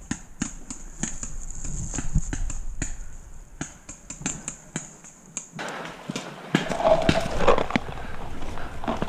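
Quick footsteps crunching on dry leaves and dirt, about three a second. About halfway through they give way to a louder, fuller mix of rustling and knocks.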